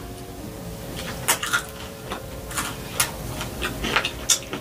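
Close-miked wet mouth sounds of a person eating: chewing, finger licking and a few sharp lip smacks at irregular intervals.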